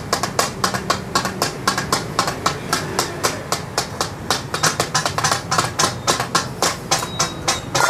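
Takatak: two steel spatulas chopping and clanging on a large flat tawa griddle, a fast, irregular clatter of metal strikes, about five a second.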